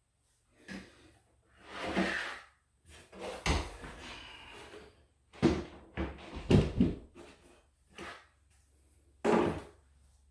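Irregular wooden knocks, bumps and short scrapes from a wooden closet-organizer unit being shifted and adjusted as it is brought into level, with a cluster of several knocks about six seconds in.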